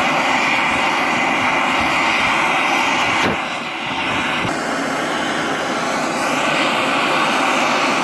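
Gas torch flame blowing steadily into a ceramic melting dish, melting borax flux into a glaze. It dips briefly in level a little over three seconds in, then carries on.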